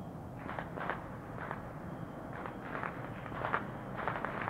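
Scattered distant firecracker pops, about eight in four seconds at uneven gaps, each with a short echoing tail, over a steady low rumble of distant traffic.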